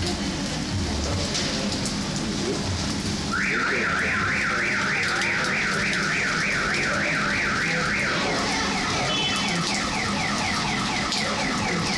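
Steady heavy rain. About three seconds in, a car alarm starts up with fast repeated rising whoops, about four a second, and switches to a different siren pattern about eight seconds in.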